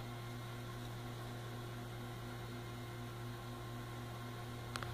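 Steady low electrical hum with a fan-like hiss and a faint regular pulsing tone, like mains hum from running equipment. A single small click near the end.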